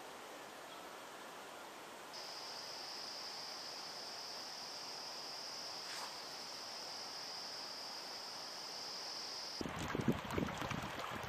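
An insect's steady, high-pitched trill starts about two seconds in over a soft background hiss and holds unbroken for several seconds. Near the end it stops and wind buffets the microphone in gusts.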